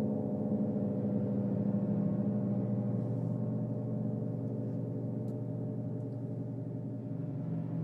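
Large Paiste gongs being played continuously, their low shimmering tones overlapping into one steady, sustained wash with no single strike standing out.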